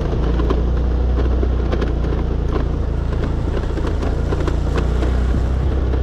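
Honda Click scooter's single-cylinder engine pulling steadily up a rocky dirt trail, a constant low drone, with frequent small clicks and knocks from stones and ruts under the wheels.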